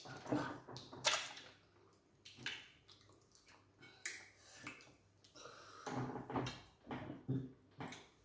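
Eating by hand: wet chewing, lip-smacking and finger-licking on sticky starch and okra soup, in short irregular bursts, with a few low hummed sounds in the second half.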